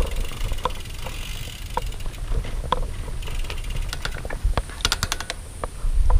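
Bicycle freewheel ratchet clicking as the bike is moved: single ticks about once a second, then a quick run of ticks a little before the end, over a low rumble.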